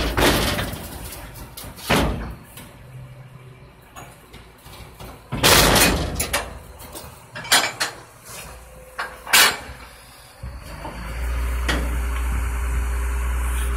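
Rear-loader garbage truck emptying a steel dumpster: a series of loud metal clanks and bangs as trash hits the hopper and the dumpster knocks against it. Near the end the truck's engine revs up and holds a steady low drone as it drives the hydraulics that lift and tip the dumpster.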